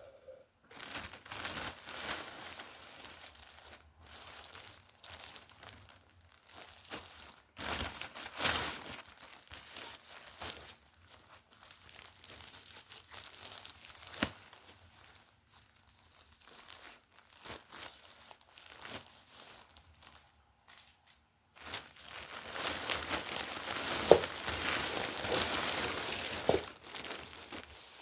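Plastic packaging crinkling and rustling in irregular bursts as parcels are handled and unwrapped, with a longer, louder stretch of crinkling and tearing near the end.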